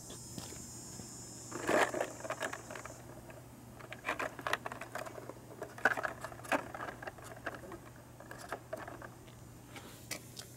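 Aluminium foil windscreen crinkling and rustling as it is handled and wrapped around a titanium cook pot, in irregular bursts of small crackles from about two seconds in until near the end.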